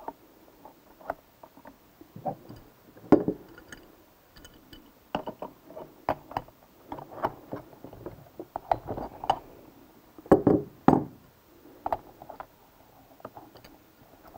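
Irregular metal clinks, clicks and knocks of hand tools being handled: a pulley removal tool being fitted onto the driven pulley shaft of a CVT transaxle and two wrenches working on it to loosen the pulley nut. The knocks are loudest about three seconds in and again around ten to eleven seconds in.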